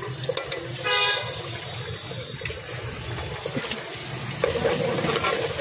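Eggs and oil sizzling in a large aluminium pot over a burner, a steady hiss. A vehicle horn sounds briefly about a second in.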